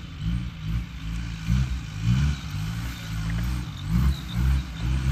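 Off-road vehicle's engine revving in uneven surges, its pitch rising and falling again and again as it works over a rough track.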